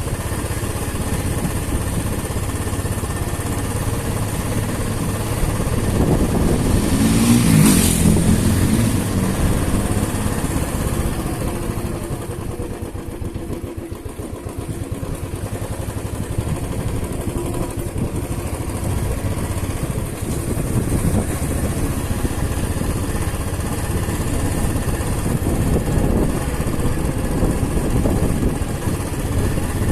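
Motorcycle engine running on the move, loudest about eight seconds in, easing off around fourteen seconds, then pulling steadily again.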